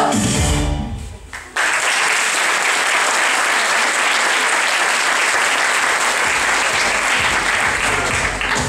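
A sung number with backing music ends in the first second, then an audience breaks into applause, starting suddenly about a second and a half in and clapping steadily.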